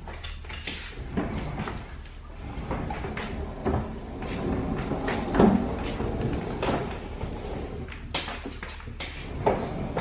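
Scattered knocks and clunks from handling a new stainless-steel refrigerator, its door being opened and closed, the loudest clunk about halfway through.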